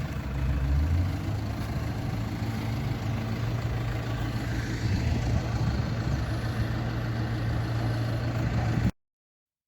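Diesel engine of a JCB 4CX backhoe loader running steadily at working speed, swelling slightly about a second in, then cutting off abruptly near the end.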